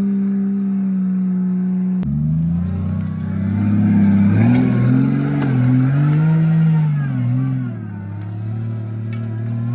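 Jeep engine running at a steady pitch, then about two seconds in switching to revving up and down repeatedly as the Jeep, on wooden saw-blade wheels, pushes through deep mud.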